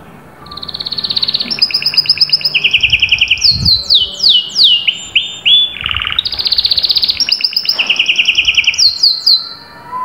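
Domestic canary singing one long song of rapid trills, switching between higher and lower rolls, with a run of quick falling whistles in the middle.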